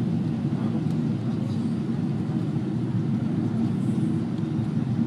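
Steady low rumble of a jet airliner's engines and airflow, heard inside the passenger cabin during the descent to land.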